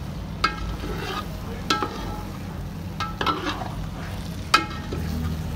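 Chicken curry being stirred in a metal pot with a metal spatula, which clinks sharply against the side of the pot about five times, over steady sizzling.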